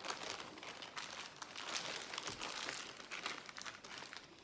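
Plastic dry-aging bag around a prime rib crinkling as it is handled and handled again, a continuous crackle of many small sharp crinkles.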